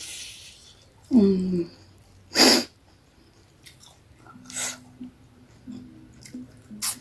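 A person eating spicy noodles: a short voiced sound just after a second in, then a sharp, loud burst of breath from the mouth about two and a half seconds in, then quiet chewing with a low humming sound.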